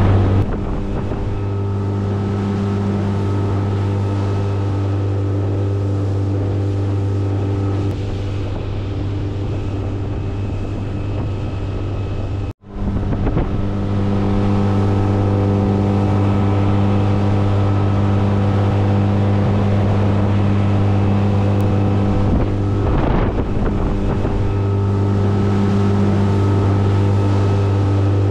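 Boat's outboard motor running steadily at cruising speed, an even engine drone. The sound cuts out for an instant about twelve seconds in, then carries on the same.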